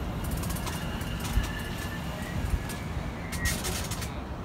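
Class 720 Aventra electric multiple-unit train moving slowly along the platform: a steady low rumble with a faint high whine and scattered sharp clicks, thickest about three and a half seconds in.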